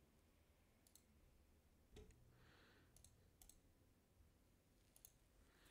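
Near silence with a few faint computer mouse clicks, about five, spread out as the browser is navigated.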